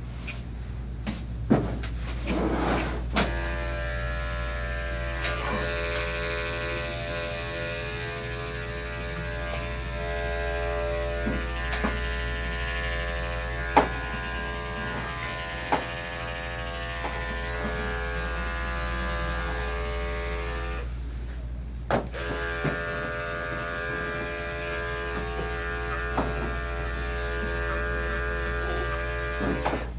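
Electric dog-grooming clippers running with a steady hum as they cut through the coat. They stop for about a second about two-thirds of the way through, then start again, with a few sharp clicks along the way.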